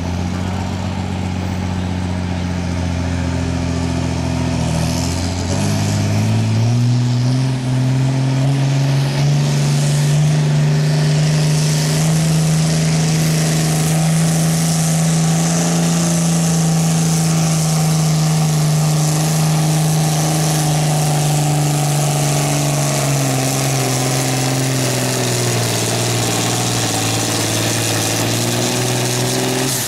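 John Deere farm tractor engine pulling a tractor-pull sled at full throttle. It revs up a few seconds in and holds a steady high note, then drops in pitch over the last several seconds as it bogs under the building load of the sled.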